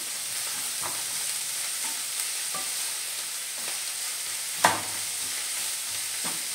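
Shredded cabbage sizzling as it fries on high flame, while a spatula stirs it with scraping knocks against the pan about once a second. The loudest knock comes about two-thirds of the way through.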